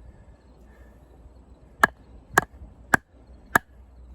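Condor Heavy Duty Kukri's 1075 carbon-steel blade chopping into wood: four sharp, evenly paced strikes about 0.6 s apart, starting a little under two seconds in.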